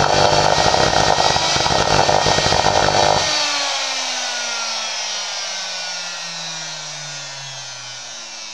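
Circular saw's brushed commutator motor running flat out on a test run, then switched off about three seconds in and coasting down, its whine falling steadily in pitch. Heavy arcing at the commutator shows through the vents as it runs: the re-soldered armature winding has not cured the fault.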